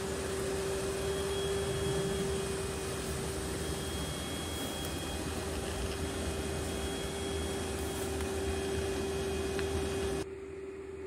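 Steady mechanical hum: one constant mid-pitched tone over an even hiss, with a fainter higher tone coming and going. The hiss thins out suddenly about ten seconds in while the tone carries on.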